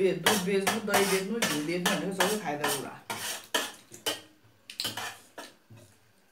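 Metal spoons clinking and scraping against stainless steel plates as people eat rice, in quick repeated clicks that thin out and stop about five and a half seconds in.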